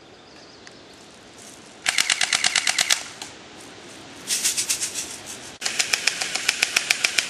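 Airsoft guns firing on full auto: three bursts of rapid, evenly spaced shots, about a dozen a second, each burst a second or so long.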